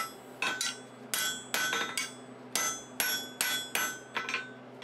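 Hand hammer striking a hot iron bar over the rounded edge of an anvil to put a sharp bend in it. About ten blows come two or three a second, each with a short metallic ring, and they stop shortly before the end.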